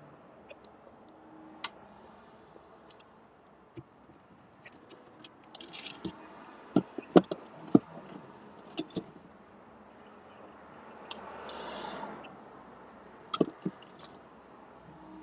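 A car interior being searched by hand: scattered clicks, small clatters and rustling as objects are moved about, with a run of sharper knocks in the middle and a couple more near the end.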